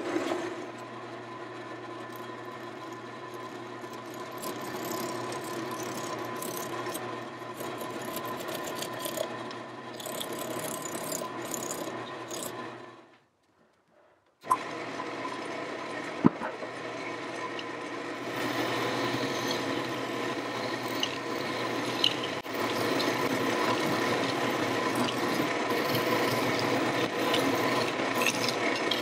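Wood lathe running with a spinning walnut blank while a turning tool cuts and scrapes the wood, a steady motor hum under a rough hiss of cutting. The sound cuts out for about a second near the middle, then returns louder with a couple of sharp clicks and grows louder again later on.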